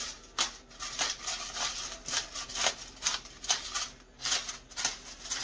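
Hand-held pepper grinder being twisted over steaks: a quick series of short grinding strokes, about three a second.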